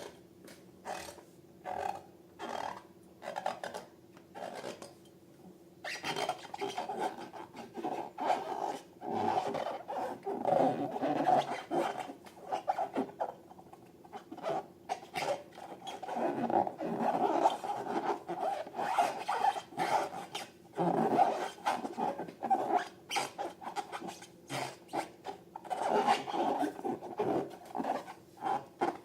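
Rubber balloons and slime being handled: irregular rubbing and scraping strokes, sparse at first and then busy and continuous from about six seconds in.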